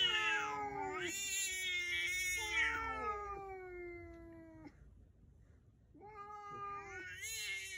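Male cats yowling at each other in a standoff, a sign of intermale aggression: one long wavering yowl that slowly falls in pitch and stops about four and a half seconds in, then after a short silence a second long yowl.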